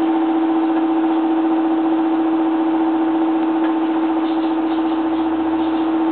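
A small electric motor humming steadily at one pitch, with a stack of overtones above it.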